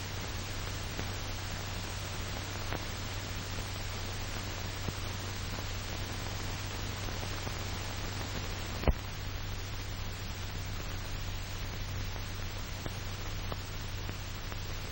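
Steady hiss and low hum of an old film soundtrack between narration, with a few faint clicks and one sharper pop about nine seconds in.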